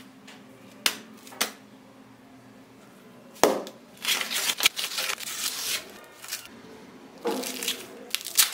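Fresh green corn husks being pulled and torn off an ear of sweet corn: a dry, crackling rustle in two spells. A few sharp knocks against a wooden cutting board come before it.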